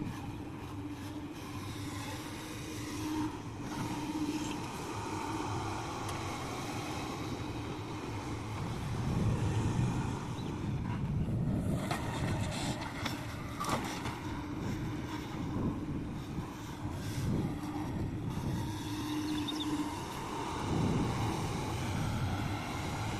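Excavator running as it works, with a steady whine that comes and goes and a few knocks about halfway through.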